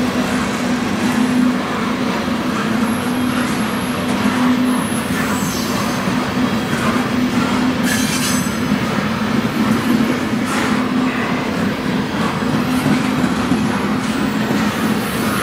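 Freight train cars rolling past close by: a steady rumble of steel wheels on rail with a low hum. Thin, high wheel squeals come through now and then, with short sharp clanks about halfway through.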